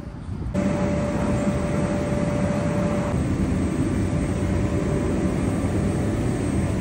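Mechanical bull ride running: a steady machine drone that comes in suddenly about half a second in, with a thin steady whine over it that stops about three seconds in.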